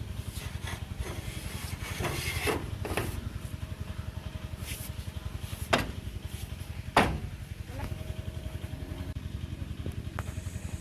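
A small engine running steadily with a fast, even low beat, and a few sharp knocks over it, two louder ones about six and seven seconds in.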